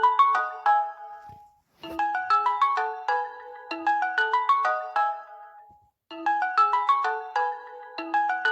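Samsung Galaxy phone alarm tone: a short, quick melody of separate notes that loops about every four seconds, with a brief silent gap before each repeat.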